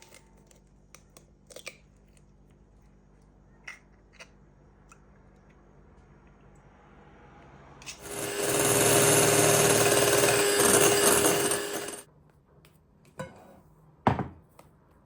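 Electric hand mixer running steadily for about four seconds, whisking eggs for a fluffy omelette, with a constant motor hum under the noise of the beaters. A few light clicks and knocks come before it and two sharper knocks follow near the end.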